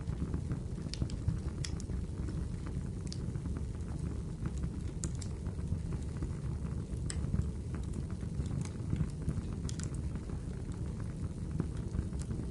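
Wood fire in a fireplace burning steadily: a constant low rumble of the flames with scattered sharp crackles and pops, about one or two a second.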